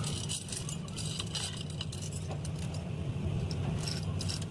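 Metal clinking and rattling, many short sharp clicks, over a steady low engine hum.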